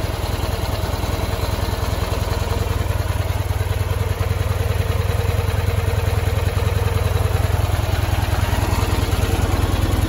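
1973 Ural M66's 650 cc flat-twin engine idling steadily through its twin mufflers. It is an even, quiet idle: only intake and exhaust sound, with no whine from the timing gears or gearbox.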